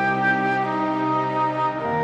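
Background music of slow, held chords, changing chord near the end.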